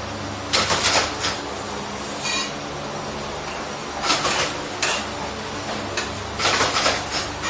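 Metal workshop noise: a steady machine hum with a handful of short, harsh bursts of metalworking noise from stainless-steel fabrication.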